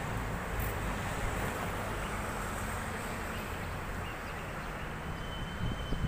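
Steady hum of distant city traffic.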